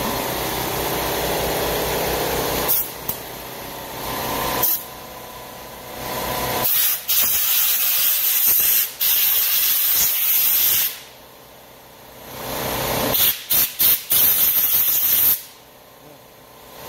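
Compressed-air blow gun hissing in bursts as it blows off a freshly vapour-blasted motorcycle carburetor: two short blasts, a long blast of about four seconds, then a quick run of short blasts and another long one. A steady machine hum runs under the first few seconds.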